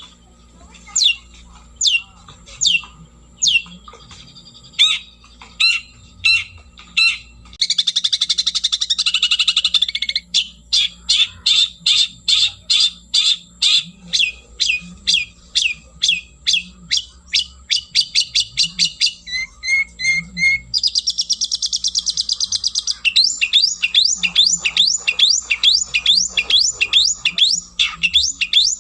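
Long-tailed shrike (cendet) singing loudly: a string of sharp descending notes, spaced out at first and then coming about two a second, broken twice by dense rattling trills.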